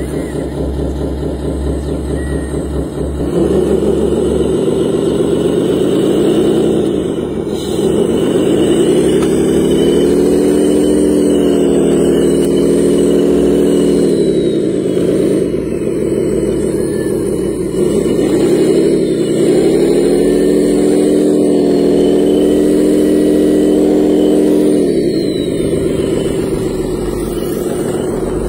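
Radio-controlled hydraulic wheel loader working: its motor runs with a steady pitched hum that steps up about three seconds in, then holds, its pitch dipping and recovering about four times as the machine works.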